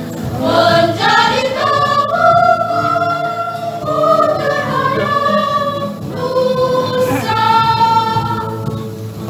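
Women's choir singing a medley of Indonesian songs in several voice parts, with long held notes, in two phrases with a short break about six seconds in.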